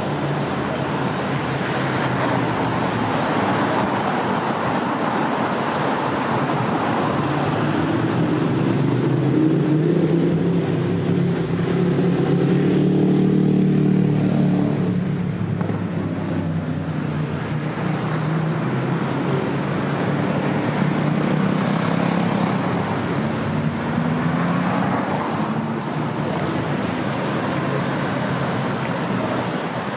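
City street traffic: the steady hum of road vehicles, with one vehicle's engine passing close and loudest about ten to fourteen seconds in. Another engine note rises and falls a little past twenty seconds.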